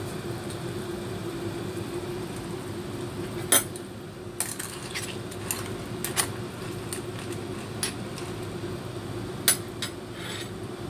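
Scattered sharp metallic clinks against a stainless steel soup pot, over a steady low hum.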